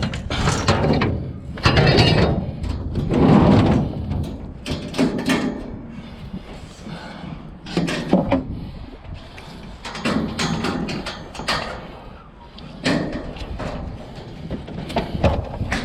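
Irregular knocks, bumps and scrapes of hard objects being handled and shifted around. The loudest come about two and three and a half seconds in.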